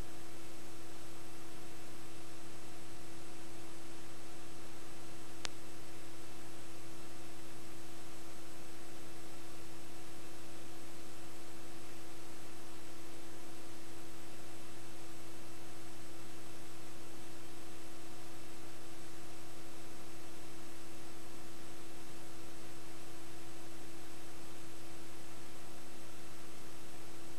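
Steady electronic hum and hiss with no recorded sound behind it, the noise of a silent video track; one faint tick about five and a half seconds in.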